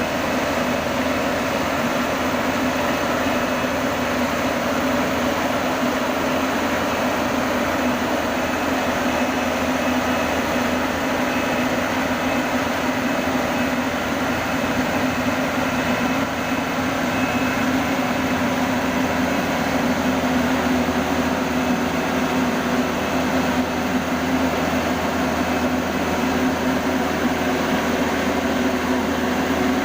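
Yanmar YH850 combine harvester's diesel engine running steadily with a constant drone as the machine climbs the loading ramps onto a truck.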